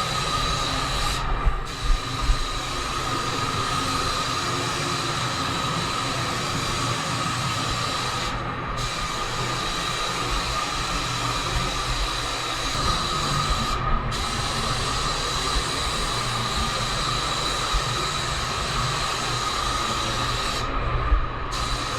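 Steady hiss of rushing air over a constant whine, typical of shop compressed-air equipment; the high hiss cuts out briefly four times, about a second in, near the middle, and near the end.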